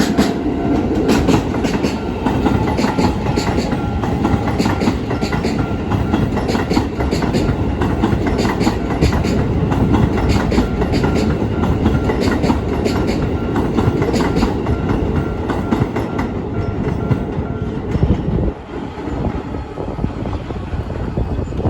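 Keisei 3000-series electric train passing over a level crossing: a steady rumble with the clickety-clack of wheels over rail joints in quick repeated groups, dropping away near the end as the last car clears. The crossing's warning bell rings faintly under it for most of the pass.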